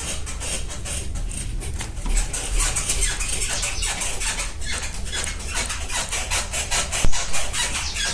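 Rear of a Fiat Uno squeaking in a rapid run of short creaks as the car body is pushed down and rocked. The cause is the handbrake cable rubbing at its bracket by the rear wheel, where its rubber protector has dried out and broken.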